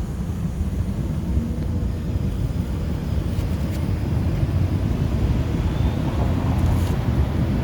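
Propane furnace burner running with a steady low roar, slowly growing a little louder.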